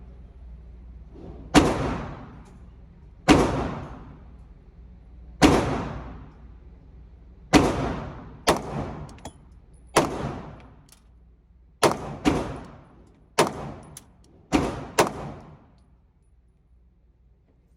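Pistol shots from a 9 mm Glock 19 being sighted in: about eleven single shots fired one to two seconds apart, some in quick pairs, each with a long echoing tail. The shooting stops a few seconds before the end.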